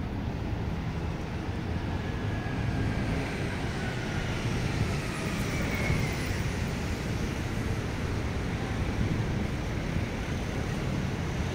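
Steady city traffic noise: a low hum of passing cars and street vehicles, with a faint whine gliding down and then up in pitch around the middle.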